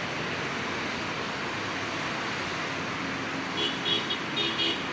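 Steady background traffic noise. About three and a half seconds in, a vehicle horn beeps in two quick bursts of short toots.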